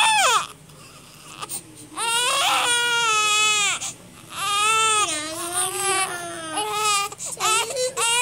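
Infant crying hard: long wailing cries of one to two seconds each, broken by short pauses for breath, with a few shorter cries near the end.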